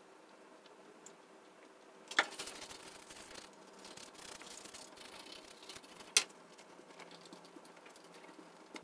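Toothbrush bristles scrubbing the back of a printed circuit board, starting about two seconds in, with a sharp tap at the start and another about six seconds in.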